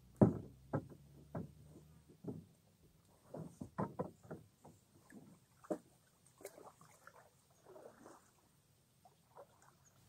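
Irregular knocks and thumps as a person climbs from a wooden jetty into a kayak and settles in, the hull and paddle bumping. The loudest knock comes just after the start, with several lighter ones following over the next few seconds.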